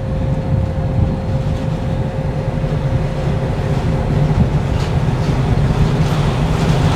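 Steady low rumble of an idling vehicle engine, with a constant steady hum above it.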